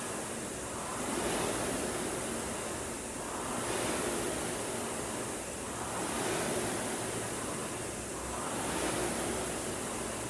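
Concept2 rowing machine's air-resistance flywheel whooshing, swelling with each drive stroke and fading on the recovery, about one surge every two and a half seconds: a steady rate of about 24 strokes a minute.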